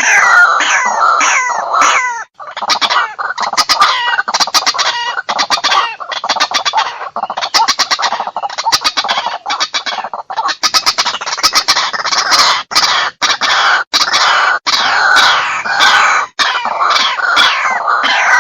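White-breasted waterhen calling. Quick falling notes give way, about two seconds in, to long runs of rapid, harsh, repeated croaking pulses, and the falling notes return near the end.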